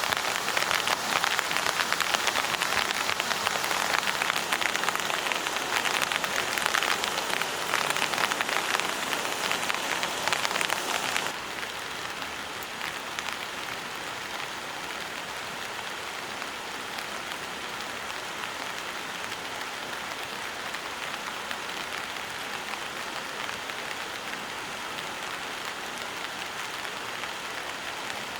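Rain falling, a dense patter of many drops hitting a surface. About eleven seconds in it cuts abruptly to quieter, steadier rain.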